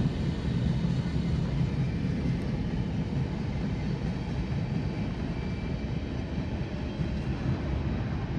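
Freight train's last cars rolling away on the track: a steady low rumble of steel wheels on rail that slowly fades.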